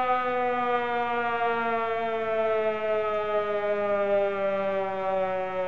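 Civil defense siren sound effect, one long wailing tone slowly falling in pitch as it winds down, played as an alarm to celebrate a big card pull.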